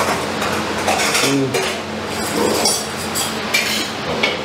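Stainless steel plates and bowls clinking and clattering on a table during a meal, with a few ringing metallic clinks near the end.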